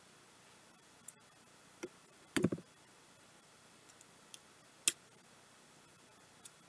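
Light hard clicks and taps of jewelry pieces being handled while making necklaces: about half a dozen separate clicks, a short cluster of knocks about two and a half seconds in, and the sharpest click near the end.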